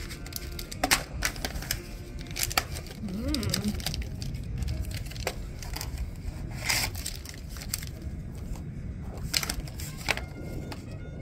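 A cat chewing a crunchy treat: irregular crisp crunching clicks, some sharper than others, over a low outdoor background hum.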